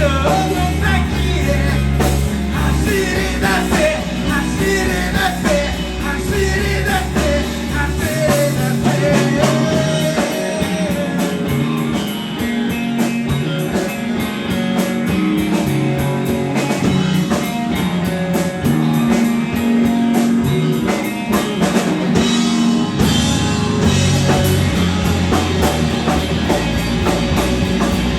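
Live rock band playing a song with a singer, guitar and drums. The deep bass drops away for a stretch in the middle and comes back near the end.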